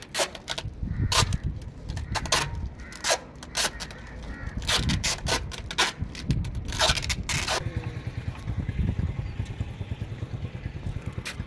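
Quick, sharp clicks and scrapes of coaxial cable and its fittings being handled under a cable TV booster box. They come thick and fast for the first seven seconds or so, then thin out into a low rumbling handling noise.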